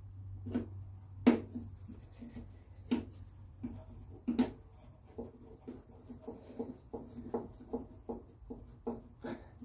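Clicks and knocks of hands handling the welding-wire spool and feed parts inside a wire-feed welder's compartment: a sharp click about a second in, another at about four and a half seconds, then a run of quick light ticks, about two to three a second.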